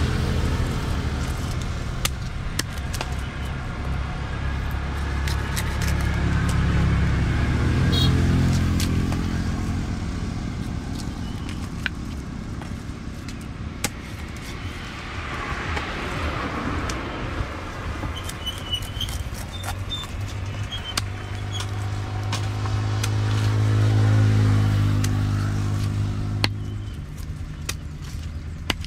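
Road vehicles passing close by: a low engine hum swells and fades twice, with a lighter pass in between. Over it come scattered sharp clicks and scrapes from a knife scaling and cutting a tilapia on a wooden chopping block.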